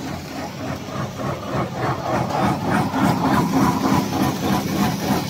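Cream-filled corn-stick extruder line running, its machinery making a steady mechanical sound with a fast even pulsing, about five beats a second, that grows louder about two seconds in.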